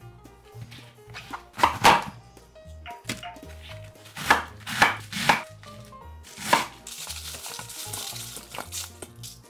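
Chef's knife cutting through a head of cabbage onto a wooden cutting board, about six crisp chops. Near the end, a steady crisp rustle as cabbage pieces are pulled apart by hand.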